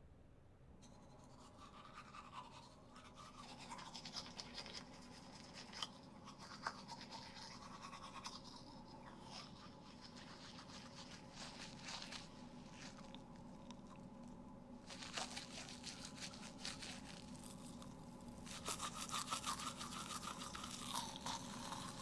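Manual toothbrush scrubbing teeth, a scratchy brushing sound that comes in several bouts with short pauses between them, over a faint steady hum.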